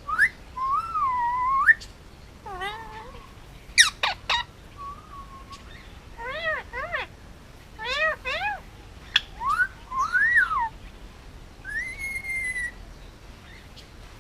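A male Indian ringneck parakeet whistling and calling: a run of separate gliding whistles, sharp chirps and squeaky mimicked sounds, one every second or so, falling quiet near the end.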